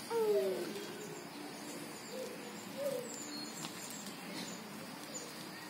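A dove cooing: one falling coo just after the start, then two shorter, softer coos a couple of seconds later.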